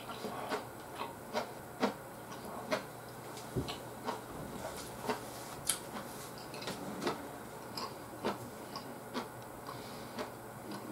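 Close-miked mouth sounds of chewing: irregular sharp clicks and smacks, roughly two a second, over a low steady hum.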